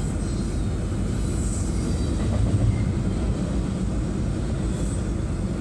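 Double-stack intermodal container train rolling past a level crossing: a steady low rumble of its wheels and cars on the rails, heard from inside a car.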